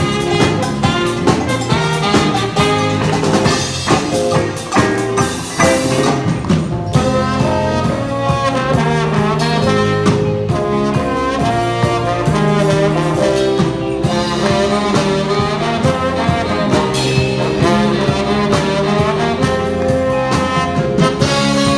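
Instrumental jazz-style band music: horns carrying the melody over a steady drum beat.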